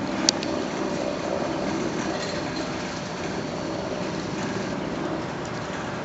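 Freight train tank cars rolling past: a steady rumble of steel wheels on rail, with one sharp click a moment in.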